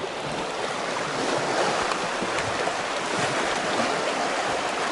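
Small waves washing in over a rocky shore: a steady rushing that swells and eases a little.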